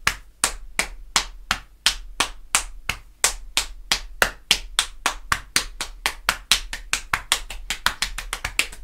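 Body percussion: a single paradiddle (right, left, right, right, left, right, left, left) slapped with the open hands on the thighs, the side of the knee and the opposite shoulder. The even slaps speed up steadily, from about three to about six a second.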